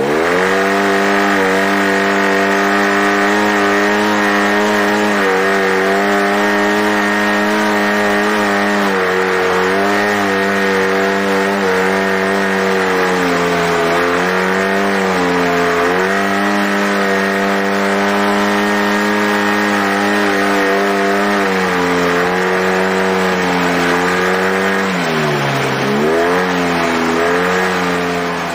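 Side-by-side UTV engine running hard at high revs under load on a hill climb. Its pitch dips and recovers a few times, with a deeper drop and rise near the end.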